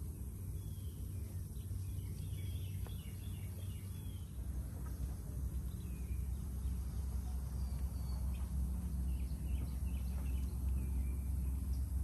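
Small birds chirping and whistling in short faint calls over a steady low outdoor rumble.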